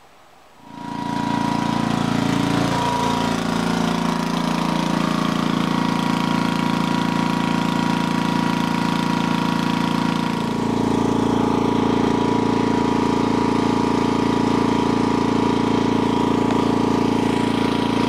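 Homelite portable generator's engine running at a steady speed. About ten seconds in, its sound shifts and gets slightly louder.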